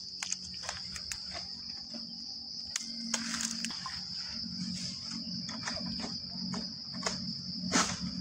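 Steady high-pitched chorus of insects buzzing without a break, with scattered short clicks and rustles and a sharper knock near the end.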